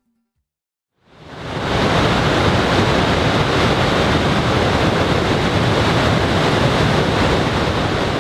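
Blue Nile Falls (Tis Abay): a heavy, steady rush of falling water. It fades in about a second in and eases slightly near the end.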